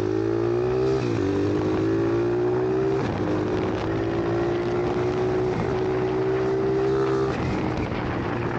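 Lifan-engined monkey bike's small single-cylinder engine running under throttle while ridden. Its note climbs slowly and dips sharply three times: about a second in, at about three seconds, and near the end.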